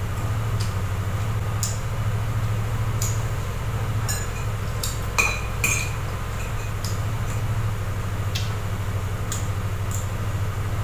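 A metal spoon clinking and scraping against a metal cooking pot as someone eats from it: about a dozen light, irregular clinks, the two sharpest about five seconds in. A steady low hum runs underneath.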